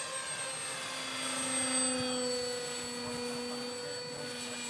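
Electric motor and pusher propeller of a small RC canard model plane in flight: a steady whine with a lower drone beneath it, getting louder about two seconds in as the plane passes.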